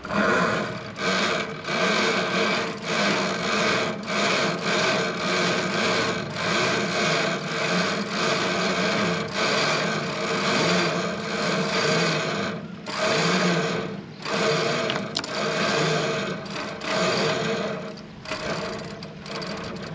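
A staysail halyard being hauled up the mast in repeated pulls, the rope rasping as it runs through its block.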